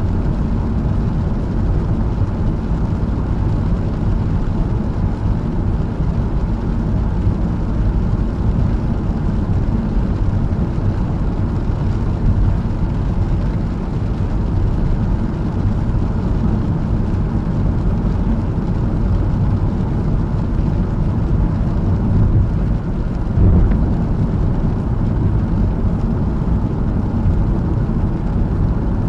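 Cabin noise of a Honda Fit cruising on a wet expressway: a steady low rumble of tyres on the wet road and the car running, picked up inside the car. There is one brief louder bump about 23 seconds in.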